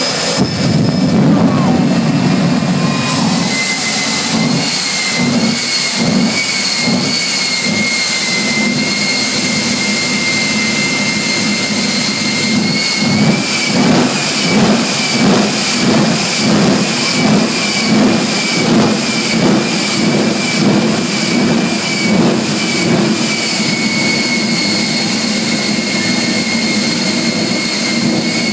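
Jet truck's jet engine running with a steady high whine. From a few seconds in until near the end it pulses rhythmically, about twice a second, as bursts of flame shoot from its stacks.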